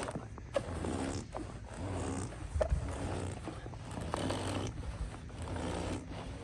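A person making low growling engine noises in several short bursts, over a rumbling, scraping background.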